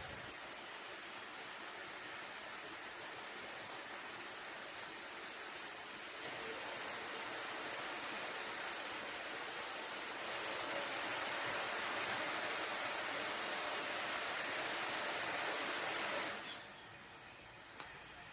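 SnugLuv high-speed hair dryer's small brushless motor running with a steady airy whoosh, getting louder in two steps about six and ten seconds in, then switched off about sixteen seconds in.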